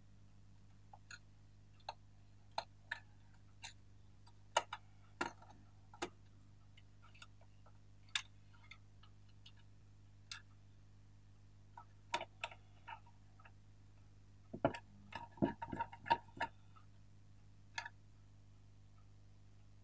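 Scattered light clicks and taps of small plastic and metal parts being handled and fitted as the plastic housing of a vintage Mitsubishi hand-cranked pencil sharpener is put back together with a small coil spring and a screw. A quick run of several clicks comes about three quarters of the way through.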